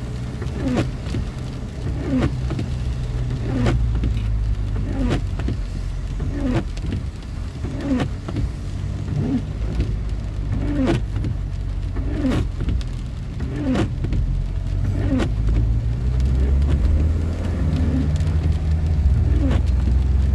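Car windscreen wipers sweeping across a wet windscreen, one stroke about every one and a half seconds, over the car's steady low engine and road rumble heard from inside the cabin. The rumble grows louder in the last few seconds as the car picks up speed.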